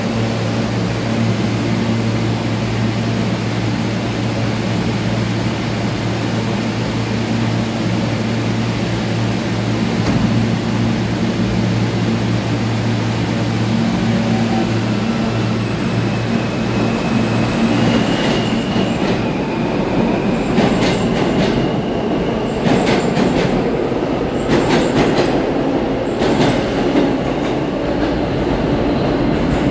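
R160 subway train standing with a steady low equipment hum, then pulling out of the station: a high motor whine sets in about halfway through, followed by a run of sharp wheel clicks over the rail joints as the cars pass and draw away.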